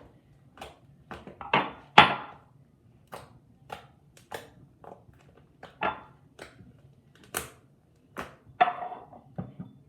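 Slime being squished and pressed by hand, giving irregular sharp clicks and pops, about one or two a second, loudest about two seconds in.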